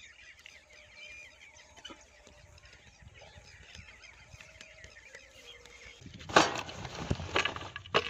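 Birds chirping faintly in the open, then several loud knocks and rustles near the end.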